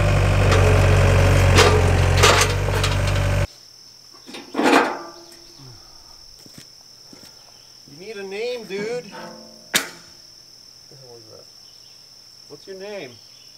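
Tractor engine running, cutting off abruptly a few seconds in. After that, a steady high chirring of insects, with a few short warbling sounds and a sharp click.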